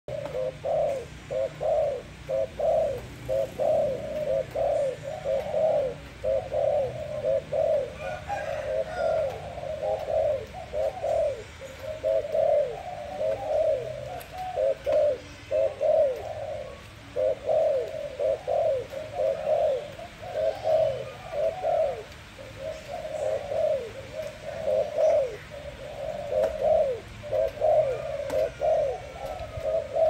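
Dove cooing: a near-continuous run of short low coos, two or three a second.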